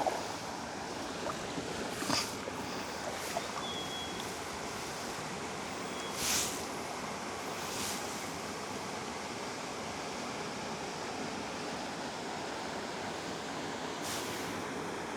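Kayak being paddled on a river: a steady rush of water with a few paddle splashes, the loudest about six seconds in.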